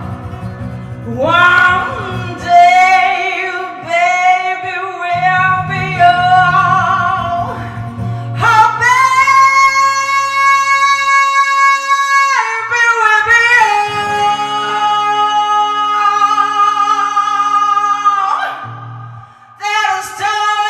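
A woman singing with vibrato to strummed acoustic guitar, holding one long note in the middle. The guitar drops out briefly under the held note.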